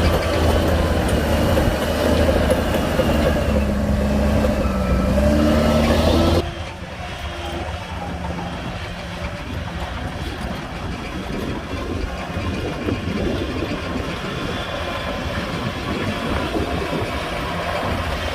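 Heavy diesel earthmoving machinery running loudly, its engine pitch dipping briefly and recovering about four to five seconds in. A little over six seconds in the sound drops abruptly to a quieter, rougher engine rumble.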